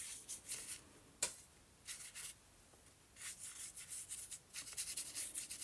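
A watercolour paintbrush stroking back and forth over gesso-coated paper in short rubbing bursts, with one sharp tick about a second in.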